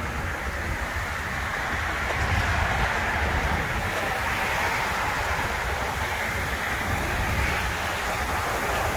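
Steady outdoor rushing noise with a fluttering low rumble of wind buffeting the phone's microphone.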